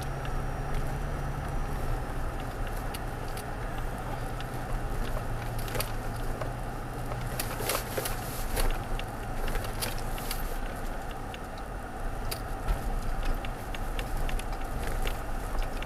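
2016 Toyota Tacoma TRD pickup crawling along a dirt road, heard from inside the cab: a steady low engine hum and tyre noise. Scattered clicks and crackles run through it and are busiest about eight seconds in.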